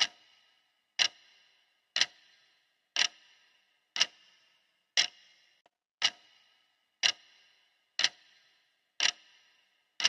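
Clock ticking sound effect for a countdown timer: one sharp tick each second, each with a brief fading ring.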